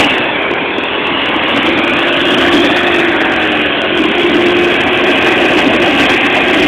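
ATV engine running steadily, with a loud even rush of noise over it.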